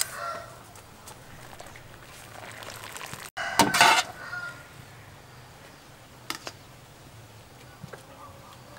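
Boiled instant noodles tipped from a wire spider strainer onto a tray: a short wet clatter about three and a half seconds in, then a single light tap a few seconds later, over a low steady hum.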